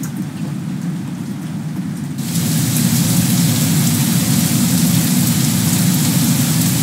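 Rain sound effect playing back: a steady rainfall hiss with a low rumble beneath it, growing louder and brighter about two seconds in.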